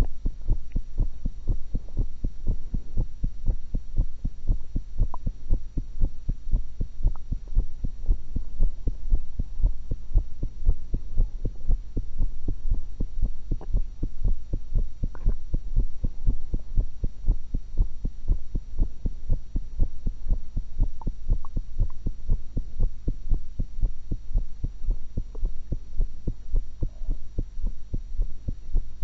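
A woman's heartbeat heard through a stethoscope: a steady, even run of low thumps over a constant low hum.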